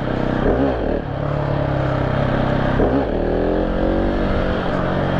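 KTM 690 SMC R's single-cylinder four-stroke engine running, with two quick throttle blips, one about half a second in and one about three seconds in, then a steadier throttle with the pitch rising slightly before levelling off.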